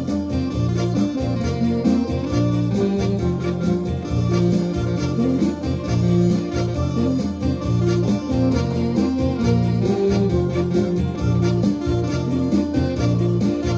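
Live ensemble music led by electronic keyboards with an organ-like tone, over a strong bass line and a steady, even beat.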